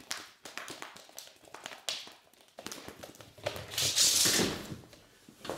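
Cardboard box rustling and scraping, with a run of short taps and scratches as a cat moves about inside it; a longer, louder rustle comes about four seconds in.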